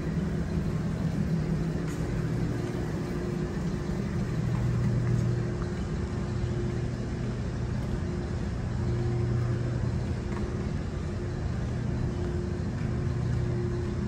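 Steady low mechanical hum with a pitched drone that swells and fades every few seconds.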